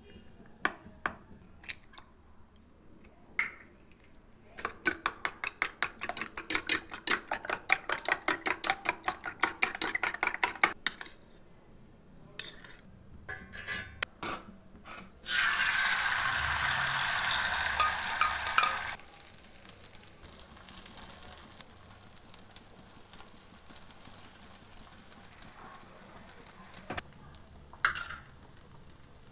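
A metal spoon beats the mixture in a steel bowl: rapid, even clinks, about six a second, for several seconds. Then a loud sizzle starts suddenly as the mixture goes into the hot oiled pan. After about four seconds it settles to a quieter steady frying sizzle with occasional spoon scrapes.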